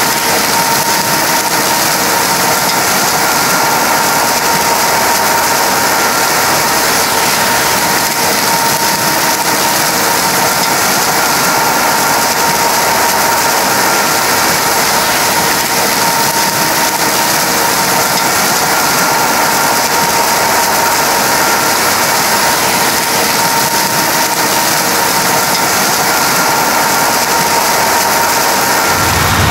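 Heavy farm machinery running steadily: a constant mechanical din with a steady high whine over it.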